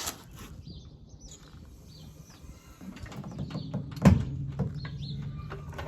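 A single heavy thump about four seconds in, over a low steady hum that comes in shortly before it, with a few faint bird chirps and small clicks.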